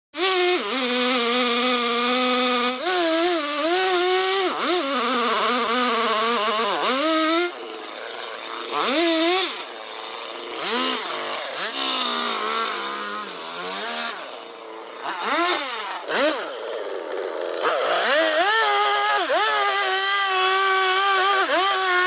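Petrol chainsaw cutting into a thick tree trunk, its engine pitch repeatedly dipping as the chain bogs in the cut and climbing back as it revs up again. It runs quieter through the middle stretch before going back to full throttle near the end.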